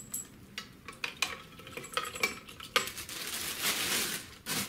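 Clear plastic wrapping crinkling and rustling as it is pulled around and off a machine by hand, with scattered light clicks and knocks; the rustling becomes continuous and loudest in the second half.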